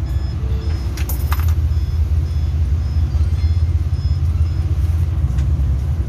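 A steady low rumble, with a short clatter about a second in and a faint high tone repeating about twice a second.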